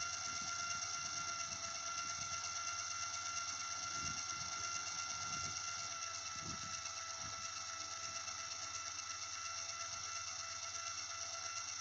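SuperPowerJack QARL3636+ satellite-dish actuator running: its electric motor and gearbox give a steady whine as they swing the dish along its polar-mount arc.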